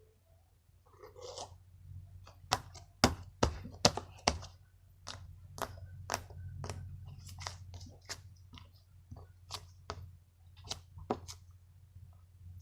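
Play-Doh slime being squeezed and kneaded by hand, giving off a long irregular run of sharp wet clicks and pops, loudest about three to four seconds in.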